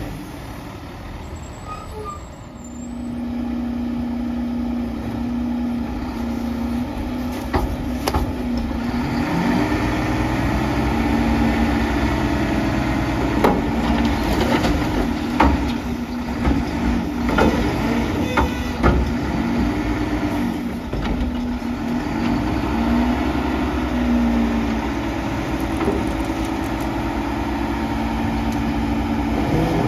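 Mack LEU front-loader garbage truck's engine revving up to drive the hydraulics as the Curotto-Can is lifted over the cab and dumped into the McNeilus hopper, then lowered. Sharp metal clanks and bangs of the can sound from about 8 to 19 seconds in.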